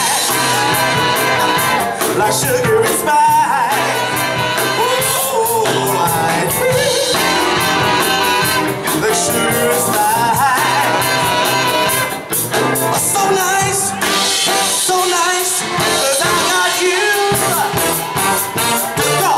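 Live soul band playing: a man singing into a microphone over electric guitars, drums and a trumpet, heard through the stage PA.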